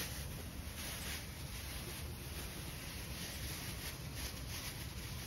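Plastic bag crinkling and rustling as it is wrapped by hand over engine parts.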